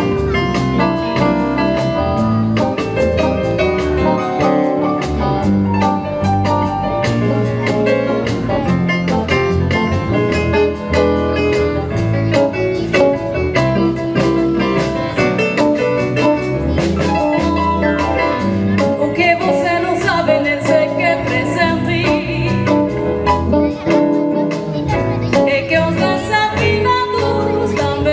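A live band playing: electric guitar over keyboard and a drum kit, with drum hits keeping a steady beat. Some notes bend in pitch in the middle.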